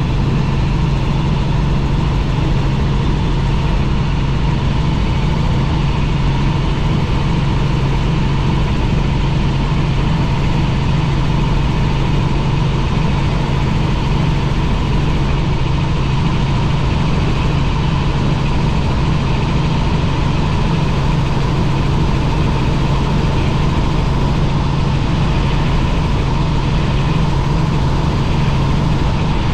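Helicopter running steadily, a loud unbroken low drone with a fainter steady higher hum over it.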